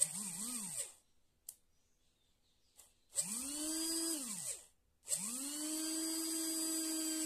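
Small brushed 12 V DC motor with a freshly rewound armature, run off a battery by touching its lead to the terminal: three runs at high speed, a brief wavering one at the start, then one of about a second and a half, then a longer one. Each spins up to a high steady whine with brush hiss, and the first two wind down in pitch as the contact is broken.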